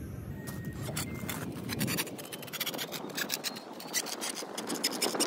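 Rapid scratching, scraping and clicking of hand tools and the battery cable being handled, as the battery wire is got ready to be cut for a new terminal. A low rumble underneath stops abruptly about two seconds in.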